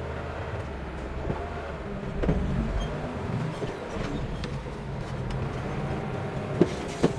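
Heavy earthmoving machine's diesel engine running steadily, with a few short knocks and two sharp knocks near the end.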